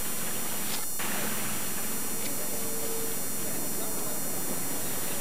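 Steady wind and water noise on an old camcorder's microphone, with faint indistinct voices in the background; the sound drops out briefly about a second in.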